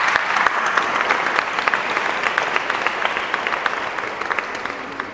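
Audience applauding: a dense patter of hand claps that gradually thins out and fades toward the end.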